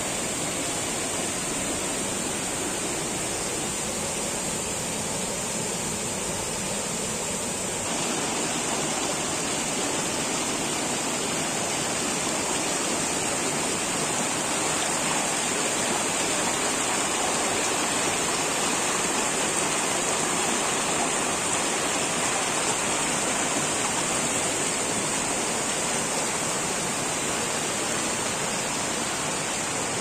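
Small forest waterfall pouring into a rocky pool: a steady, continuous rush of water, shifting in tone about eight seconds in.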